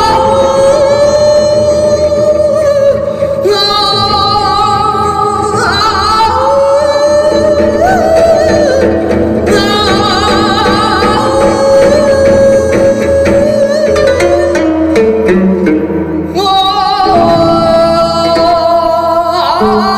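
Singing in the Korean traditional Gyeonggi minyo style, a voice holding long notes with a wavering vibrato and sliding between pitches, over instrumental accompaniment.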